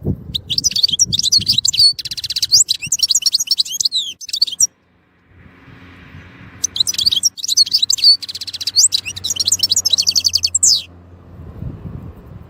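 European goldfinch singing: two bouts of fast twittering song, each about four seconds long and including rapid trills, with a pause of about two seconds between them.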